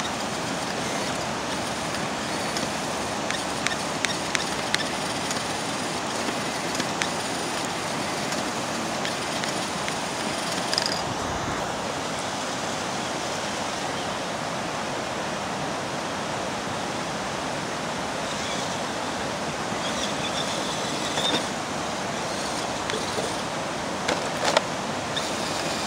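Steady rush of river rapids and a small waterfall over rock shoals, with a few light clicks and knocks on top.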